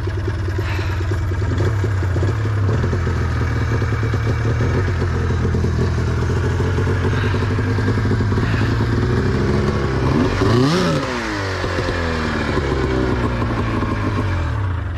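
Snowmobile engine running under load in deep snow. It revs up and back down once past the middle, then stops right at the end.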